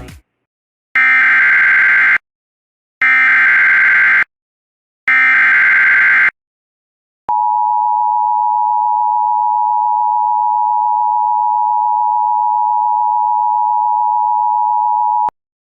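Emergency Alert System header: three roughly one-second bursts of SAME digital data screech, a second apart, then a steady two-tone EAS attention signal held for about eight seconds. This sequence marks the start of an emergency alert.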